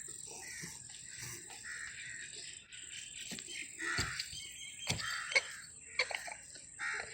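Crows cawing repeatedly, with a steady high-pitched whine running under them and a few sharp knocks about four to six seconds in.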